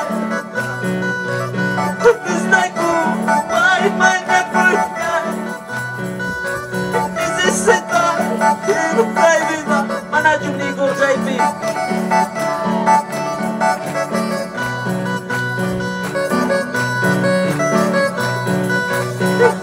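Upbeat worship music played live on an electronic keyboard and sent through loudspeakers, with a bass line bouncing between notes in an even rhythm under a melody.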